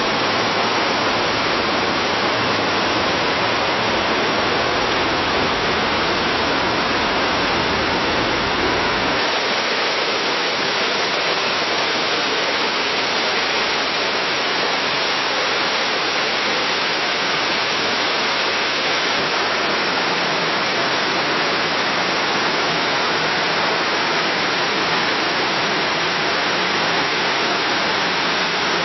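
Waterfall cascading down a cliff: a steady, loud rush of falling water. About nine seconds in, the deep low rumble drops away and a lighter, hissing spray carries on.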